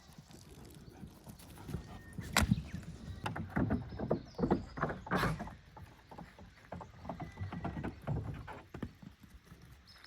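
Goats' hooves clattering and knocking unevenly on a hard surface as they move about, with two louder knocks about two and five seconds in.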